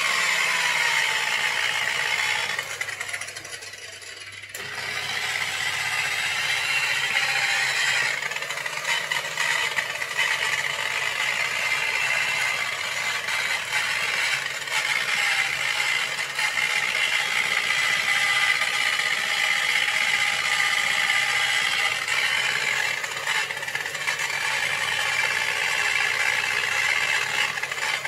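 Handheld electric buffer running with a polishing pad against a plastic headlight lens, a steady mechanical whine with some rattle. It drops away briefly about three seconds in, then runs steadily again.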